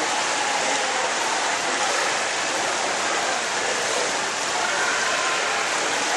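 Steady rushing and splashing water noise of an indoor swimming pool.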